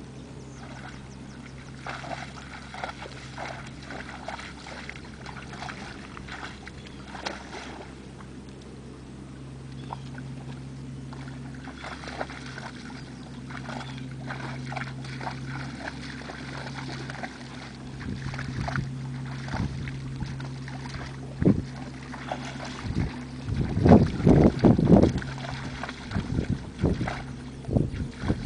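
Morgan foals splashing and pawing in shallow pond water and mud, with a steady low hum underneath. The splashing comes in short irregular bursts, with a louder, choppier run near the end.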